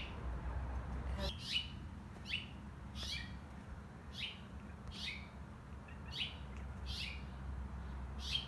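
A small songbird, which the owners take for a red finch, calling over and over: short chirps that sweep down in pitch, about one every three-quarters of a second.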